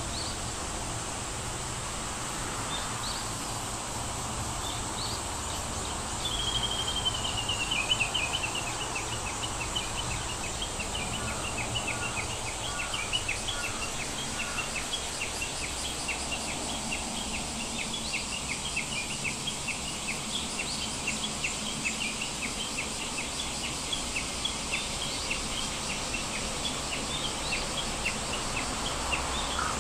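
Birds chirping over a steady hiss: a descending run of chirps about six seconds in, then short chirps repeating about twice a second.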